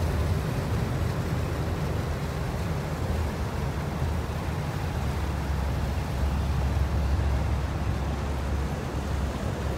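Motorboat engine running while the boat moves along on calm water: a steady low rumble with an even wash of noise over it.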